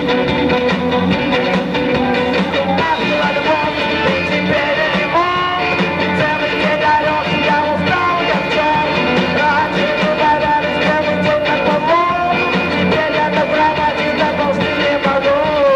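Live rock music: a man singing into a microphone over a band with guitar, his voice sliding in pitch on several held notes.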